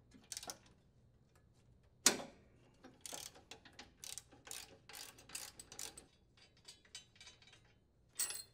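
Socket ratchet wrench clicking as it loosens and unthreads the nut securing a riding mower's steering gear sector to the steering plate. A sharp click about two seconds in, then a run of ratchet clicks at about four a second for some three seconds, a few scattered clicks, and another sharp click near the end.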